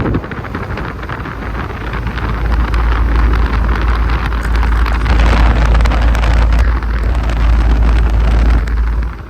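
Outdoor unit of a 2018 Amana central air conditioner running, its condenser fan rushing loudly with a deep rumble that sounds like air hitting the microphone; the compressor is barely audible under the fan. The rush grows louder about two seconds in and drops away just before the end.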